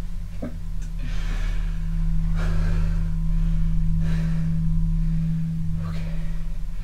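A steady, low, humming tone holds without change, with a few short, soft swells of hiss over it.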